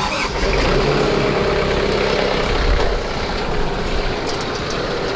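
Tractor engine throttled up and running steadily while its PTO drives a broadcast fertilizer spreader. The sound comes in suddenly, gets louder in the first second, and eases off a little about three seconds in.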